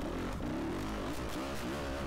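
Yamaha YZ250F's single-cylinder four-stroke dirt bike engine running under load on a trail, its revs rising and falling several times as the throttle is worked.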